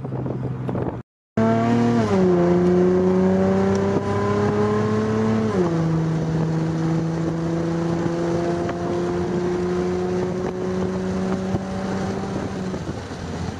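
Car engine heard from inside the cabin while pulling away and accelerating. Its pitch climbs slowly and steps down twice as it shifts up, about two and five and a half seconds in, then holds nearly steady. A brief dropout to silence comes about a second in.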